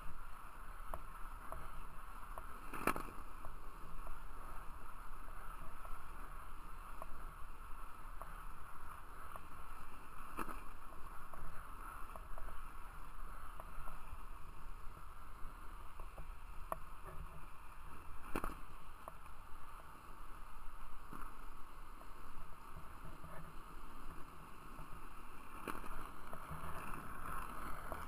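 Freeline skate wheels rolling steadily over asphalt: a continuous rumble and hiss, with a sharp click about every eight seconds, four in all.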